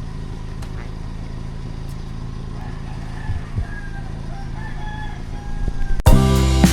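A rooster crowing faintly over a low steady rumble. Music with guitar and drums cuts in suddenly about six seconds in.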